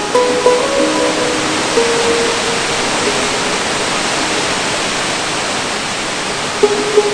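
Steady, loud rush of falling water from a waterfall. Music notes sound over it in the first few seconds and return near the end.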